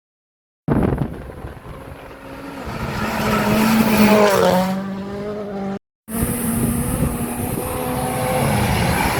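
Rally car engines at high revs on a special stage. One car comes up and goes past, its engine pitch dropping as it passes. After a brief dropout a second car is heard running hard at steady high revs.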